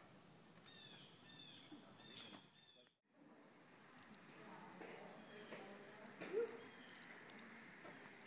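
Steady insect chorus, a high continuous trill with a slight pulse, with faint distant voices; one voice-like sound stands out briefly about six seconds in. The sound drops out completely for a moment about three seconds in.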